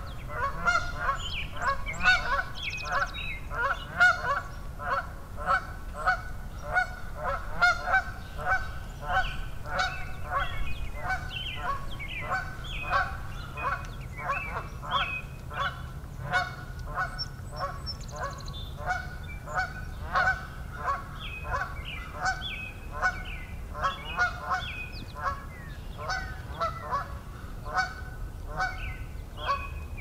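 A chorus of birds calling continuously, short pitched calls overlapping several times a second.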